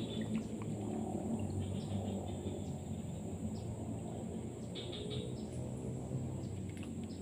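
Short, scattered bird chirps over a steady high insect drone, with a low rumble underneath.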